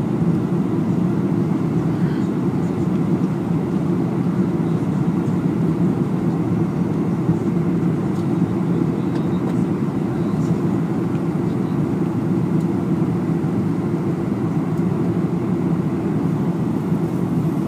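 Steady, low drone of a jet airliner's engines and rushing air, heard from inside the passenger cabin during the descent on final approach.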